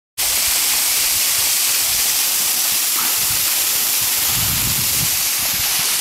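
Waterfall pouring down a rock face close by: a loud, steady hiss of falling water and spray.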